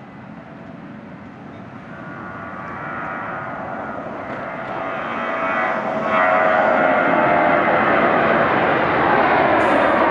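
Boeing 737-700 jet airliner's twin CFM56-7B turbofan engines at takeoff thrust as it lifts off and climbs out, a rumble with a whine in it that grows steadily louder and is loudest from about six seconds in.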